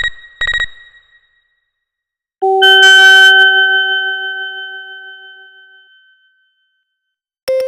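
Samsung SGH-T369 ringtones: a last short electronic beep, then about two and a half seconds in a single synthesized bell-like chime that rings and slowly fades over about three and a half seconds. A new ringtone melody starts right at the end.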